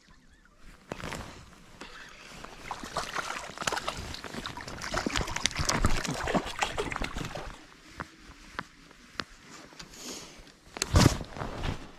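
Water splashing and sloshing close by, with a busy patter of small splashes for several seconds, then a single sharp knock about eleven seconds in.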